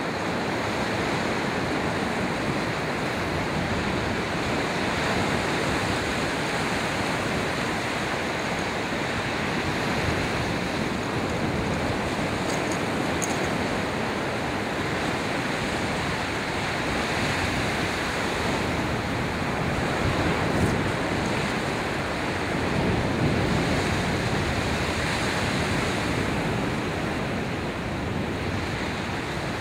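Ocean surf of 2–4 foot waves breaking and washing up a sandy beach: a steady rushing wash that swells and eases with the waves.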